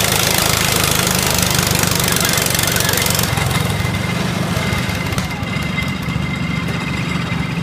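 Garden tractor engine running loud and steady while pulling a sled; the high hiss in its sound drops away about three seconds in.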